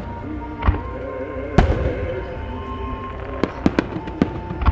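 Starmine fireworks: aerial shells bursting in quick succession, about seven sharp bangs, the loudest about a second and a half in and a quick cluster in the last second and a half. Music plays underneath.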